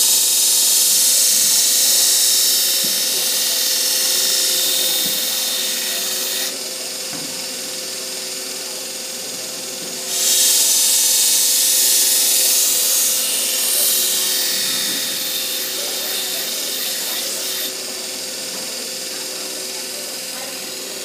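Belt grinder running with a steady hum while a machete blade is sharpened against the belt. The blade grinds on the belt with a loud hiss for about six seconds, comes off with only the grinder running, then grinds again for about seven seconds.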